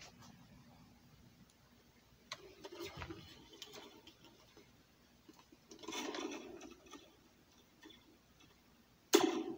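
A metal slinky taped to a red plastic cup rattling and scraping as it is handled, then near the end a single sharp strike that rings on briefly: a metal spoon tapping the slinky, the spring-and-cup trick that makes laser-gun-like sounds.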